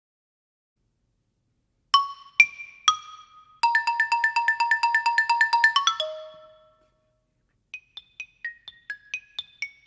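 Xylophone played with hard 1-inch ebonite mallets (Dragonfly EB1). About two seconds in come three bright single strikes, then a fast run of repeated notes at about eight a second that ends on a lower ringing note. After a short pause a quieter line of short notes follows, about four a second.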